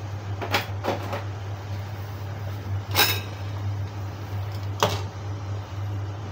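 A handful of short sharp clanks of a metal utensil on a wok, the loudest about three seconds in, over a steady low hum.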